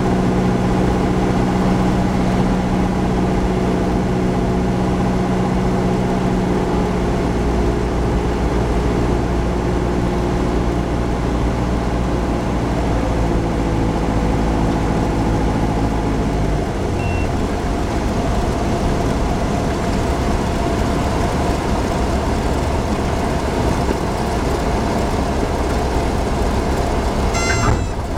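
Light aircraft engine heard from inside the cockpit, a steady drone on the landing approach. About sixteen seconds in, its pitch drops and the hum thins as the engine is throttled back for landing. Brief high chirps come near the end, just before touchdown.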